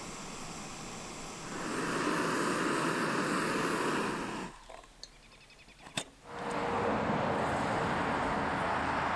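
Steady rushing road noise of a moving vehicle, louder from about a second and a half in. It cuts out abruptly for about two seconds in the middle, with a single sharp click, then returns.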